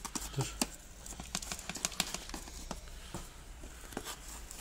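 Potting soil being pushed and scraped with a hand tool around the base of a cactus in a plastic planter: irregular small clicks, ticks and gritty scratches, busiest in the first couple of seconds.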